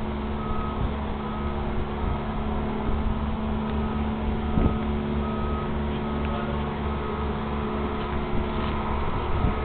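Diesel engine of a lattice-boom crane running steadily with a low, even throb as it hoists a cabin cruiser in slings. A faint high beeping repeats in short bursts over the engine.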